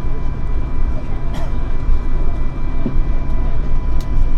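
Airbus A220-300's Pratt & Whitney geared turbofan engines running, heard as a steady heavy low rumble with two thin, steady whining tones, and a few faint clicks.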